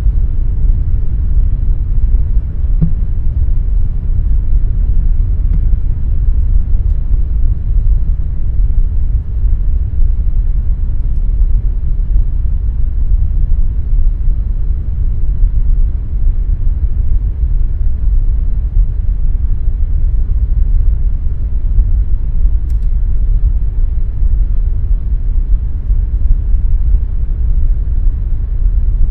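Air conditioner running steadily: a constant low rumbling hum with a soft rush of air above it, unchanging throughout.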